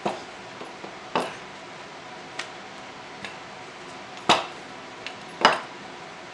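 Wooden rolling pin knocking on a granite countertop while tortilla dough is rolled out and turned: a handful of sharp knocks, about one a second, the two loudest in the second half as the pin is set down on the stone.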